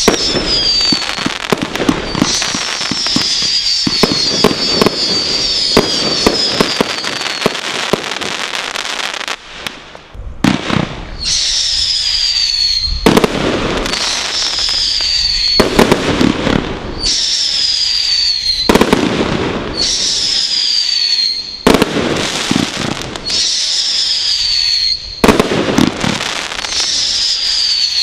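Brothers Pyrotechnics Godfather Display Kit firework cake firing. At first it is a dense run of crackling shots with high falling whistles. After a short lull about ten seconds in, single shots come roughly every two seconds, each a sharp bang followed by a high falling whistle and a crackling break.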